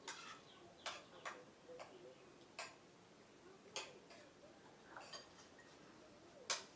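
Faint eating sounds: short sharp clicks and smacks at irregular intervals, about eight in all.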